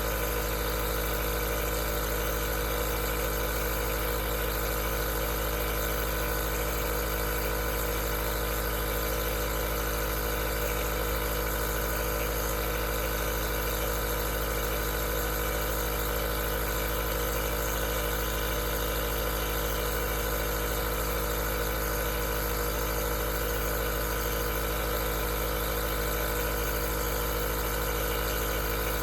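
Aerosol nebulizer running steadily: the constant hum of its compressor motor with a level hiss of air and mist.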